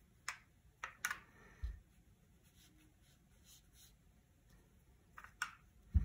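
Faint, scattered clicks and light taps of a paintbrush handled at a watercolour paint box, with one soft low thump a little under two seconds in.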